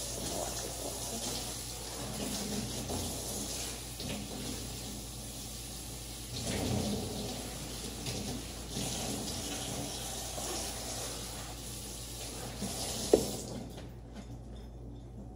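Kitchen sink faucet running, water splashing over hands being rinsed under it. A single sharp knock comes near the end, and the running water stops just after.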